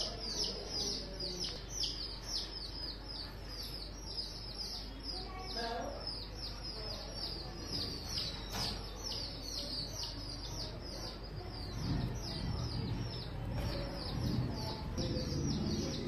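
Caged peach-faced lovebirds chirping: a steady run of short, shrill, downward-sweeping chirps, about three or four a second.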